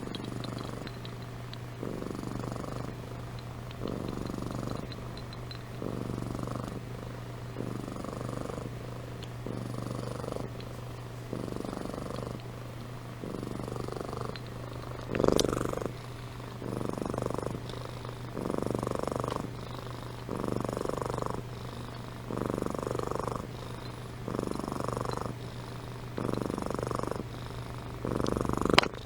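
Domestic cat purring steadily, the purr swelling and fading with each breath about every one and a half seconds. A brief louder sound comes about halfway through, and a sharp click near the end.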